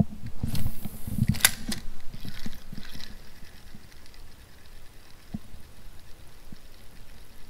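A cast with a spinning rod and reel: handling thumps and a quick swish of the rod and line, then a sharp click about a second and a half in as the reel's bail snaps shut, followed by quieter sounds of the reel being wound to retrieve the lure.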